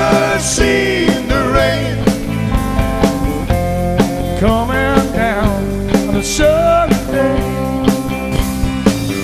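Rock band playing: electric guitar with bending notes over drums.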